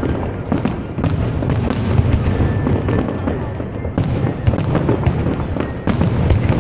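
Fireworks going off in quick succession, with many overlapping bangs and crackles and no pause between them.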